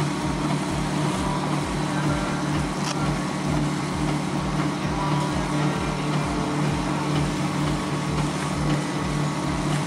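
Heavy diesel truck engine running steadily at a constant speed, with a fast, even low pulsing.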